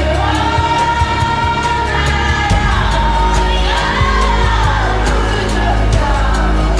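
Song with a sung melody over a sustained bass and a steady beat.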